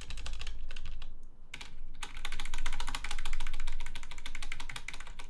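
Rapid repeated key presses on the stabilized keys of a budget DMK-02 mechanical keyboard with off-brand red switches: a fast run of clacks with a short lull about a second in. The stabilizers sound rattly and poor, which the reviewer reacts to with "yikes".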